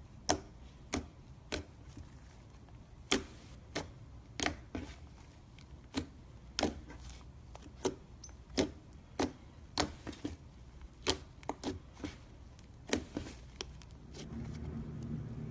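Slime being pressed and played with by hand, making a string of sharp pops and clicks, about one or two a second at an uneven pace. A low hum comes in near the end.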